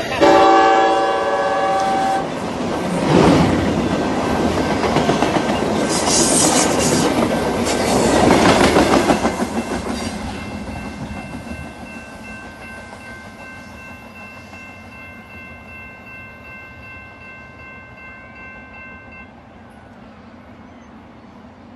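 A train horn sounds a short chord, then a train passes over a level crossing, wheels clattering on the rails, and its noise fades away. The crossing's warning bell rings on and stops about three-quarters of the way through.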